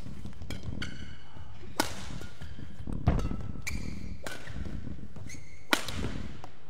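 Badminton rally: sharp smacks of rackets striking the shuttlecock, the three loudest about a second or more apart, with short high squeaks of players' shoes on the court between the hits.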